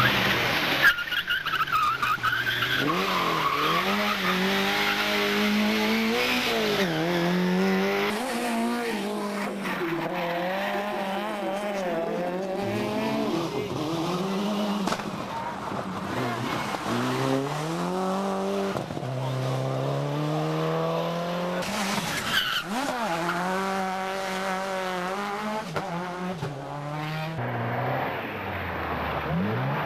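Rally car engines revving hard, the pitch climbing and dropping again and again through gear changes, with tyres skidding as the cars go by, one after another.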